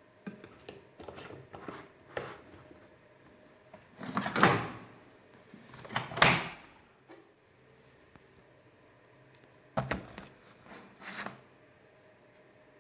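Handling noises from a washing machine's parts being opened and shut: scattered clicks and knocks, two louder sliding clunks about four and six seconds in, and two shorter ones near the end.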